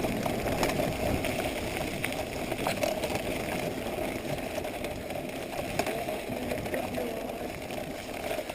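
Corratec bicycle rolling over a rough forest trail: a steady rumble with scattered clicks and rattles.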